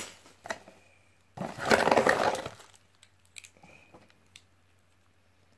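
Hands handling plastic parts and packaging: one burst of rustling and clattering about a second and a half in, lasting just over a second, with a few light clicks around it.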